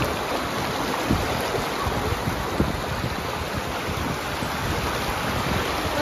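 Shallow rocky creek running over stones and small rapids: a steady rush of water.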